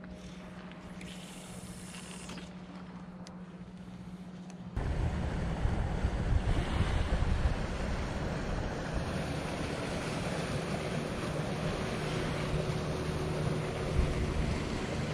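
Wind buffeting the microphone, starting suddenly about five seconds in, over the steady low hum of a motorboat's engine out on the water.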